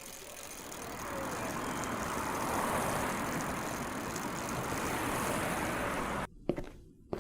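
Sound effect of a road vehicle running: its noise swells over the first couple of seconds, holds, then cuts off abruptly about six seconds in. A few sharp knocks like footsteps follow near the end.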